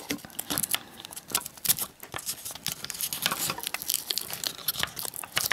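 Paper tape crinkling and rustling as fingers press and smooth it inside a plastic battery case, with many small irregular clicks.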